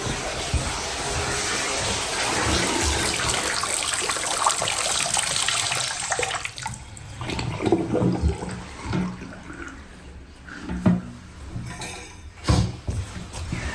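Water rushing for about six seconds, then dying away into a few knocks and clunks.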